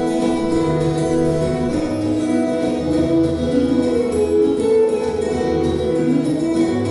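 Two steel-string acoustic guitars playing an instrumental duet live, notes changing continuously over a steady accompaniment.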